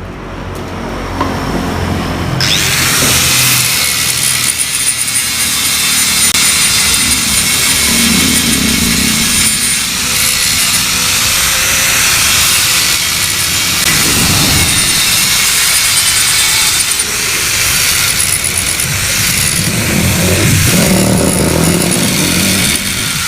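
Gas torch flame hissing steadily, coming on abruptly about two seconds in, as it burns the built-up carbon crust off the baffle of a Yamaha RX-King exhaust.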